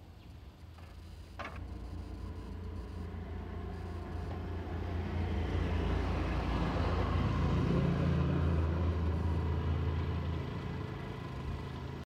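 Engine rumble that swells over several seconds, is loudest past the middle, then eases off, with one sharp click about a second and a half in.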